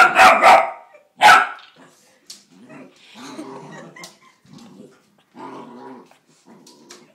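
Puppy barking at her own reflection in a mirror: a quick run of loud, sharp barks, another bark about a second later, then quieter low growls.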